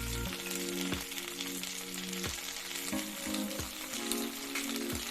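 Chicken 65 sizzling in hot oil in a pan with tomato sauce, a steady frying hiss with a few light clicks, typical of a spoon or spatula stirring.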